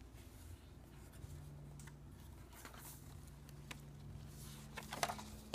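Soft paper rustling as the pages of a large hardcover picture book are handled and turned. It is faint with a few short rustles, the loudest near the end, over a low steady hum.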